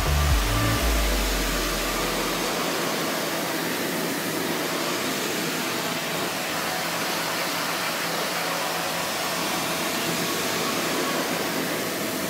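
Pressure washer jet spraying water onto a car's door jamb and sill, a steady hiss throughout. The bass of background music fades out in the first two seconds.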